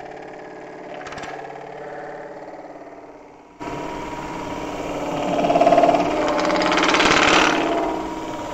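Wood lathe running with an aluminum disc spinning on it, its motor giving a steady hum. About three and a half seconds in, a louder rough rubbing noise starts suddenly as the spinning tool is pressed against the aluminum; it swells and then eases off near the end.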